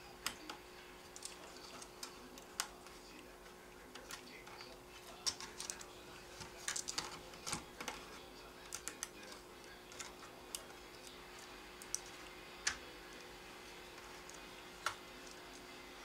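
Irregular small clicks and taps of hand work inside an open laptop, a screwdriver and fingers working the hard drive loose, busiest from about a third to just past halfway in.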